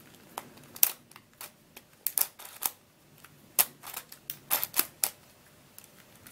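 Plastic pieces of an MF8 Radiolarian 2 twisty puzzle clicking as its faces are turned by hand: a string of irregular sharp clicks, some in quick clusters. The puzzle's faces snag and catch on anti-clockwise turns.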